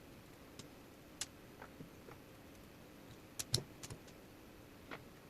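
Scattered light clicks and knocks of small plastic build parts being handled on a tabletop, about ten in all, the loudest a pair of taps about three and a half seconds in.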